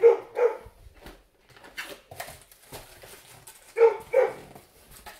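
An excited dog barking twice in quick succession, and again about four seconds later. Between the barks, faint rustles and taps come from a cardboard box being handled.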